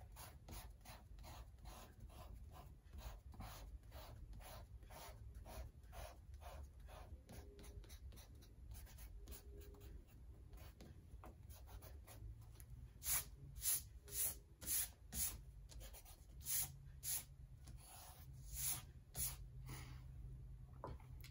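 Eraser rubbing back and forth over paper to erase pencil lines, in quick even strokes of about three a second, faint at first and louder from about halfway through.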